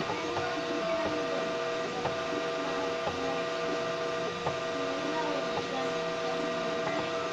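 Homemade 3D printer printing slowly, its stepper motors whining in steady tones whose pitch shifts every second or so as the print head moves, with faint ticks about once a second over a constant hum.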